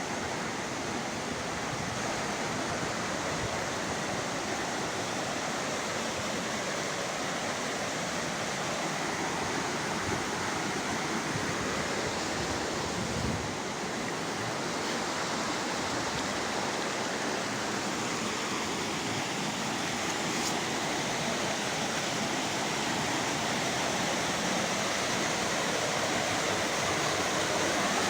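Steady rushing of fast water, as from a waterfall or mountain river, an even roar with no breaks.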